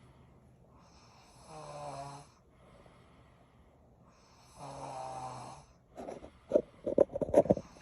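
Loud snoring: two drawn-out, buzzing snores about three seconds apart, then a rapid run of sharp, irregular sputtering pops near the end, the loudest sound in the stretch.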